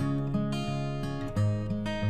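Background music: acoustic guitar strumming chords, about three a second.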